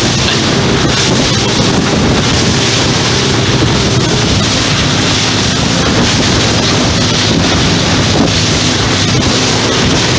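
Fishing boat running at speed over open sea: steady wind buffeting the microphone over the drone of the boat's engine and water rushing past the hull.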